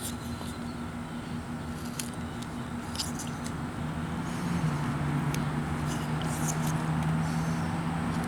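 Knife whittling wood: a few short, sharp scraping cuts as the blade shaves down a carved bayonet. Under them runs a steady low mechanical hum that drops in pitch and grows louder about halfway through.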